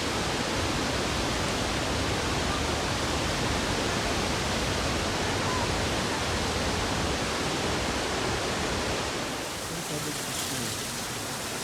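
Steady, constant rush of Kalandula Falls, a large high-volume waterfall on the Lucala River, pouring without a break. It eases slightly near the end.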